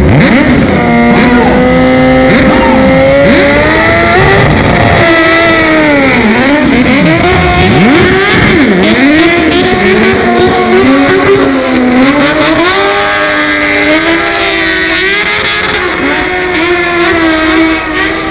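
Drag-race motorcycle and a second racing vehicle running at full throttle. Several engine notes climb and drop over and over, overlapping, and fade slightly near the end as they run off down the strip.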